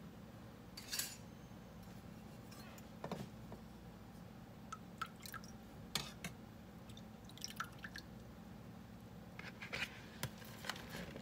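Faint, scattered clinks of a spoon against a stainless steel saucepan, with small drips and splashes as the spoon dips into the water in the pan.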